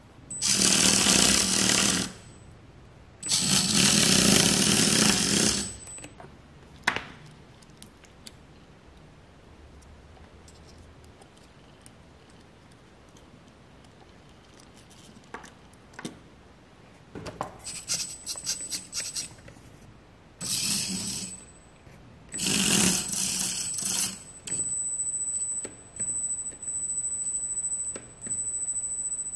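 Tiny electric motors and gearboxes of micro RC cars whirring in bursts as the cars pull against each other on a tow string, with a thin high whine in the later runs. In a quieter stretch in the middle there are only small clicks from the cars being handled.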